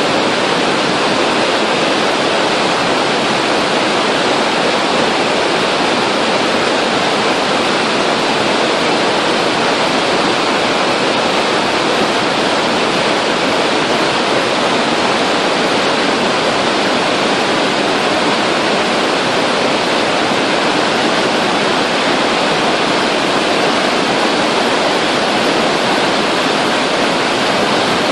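Glacier-fed Weisse Lütschine river rushing in white water over rocks through a narrow gorge: a loud, steady, unbroken rush of water.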